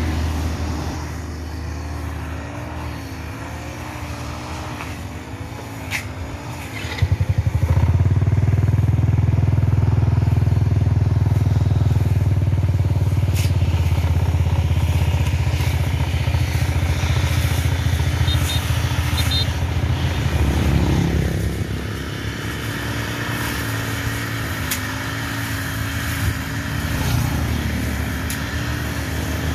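Honda GX35 four-stroke brush cutter engine running, its pitch wavering up and down. At about seven seconds it opens up to a loud, steady high speed, then drops back around twenty-one seconds.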